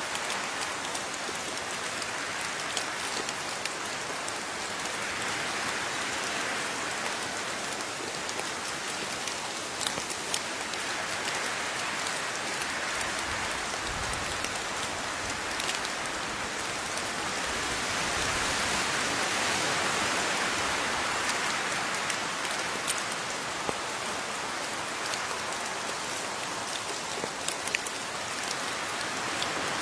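Steady rain falling, with single drops ticking sharply here and there over the hiss. The rain swells a little past the middle, then eases back.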